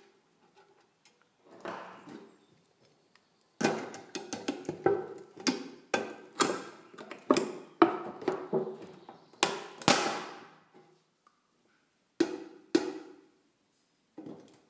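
Thin tinplate of an olive oil can clicking and crackling as its cut tabs are bent. It comes as a quick, irregular run of sharp metallic clicks through the middle of the clip, then a few single clicks near the end.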